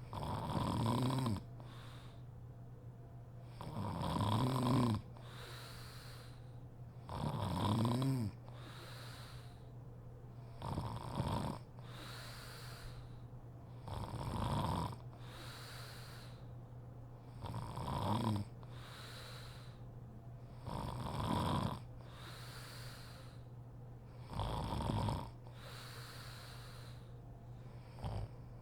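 Woman snoring in her sleep: a loud snore about every three and a half seconds, eight in all, with softer breaths between them.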